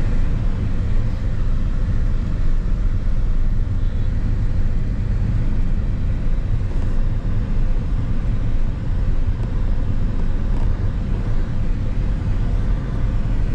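Steady low drone of a car driving, engine and road noise heard from inside the cabin.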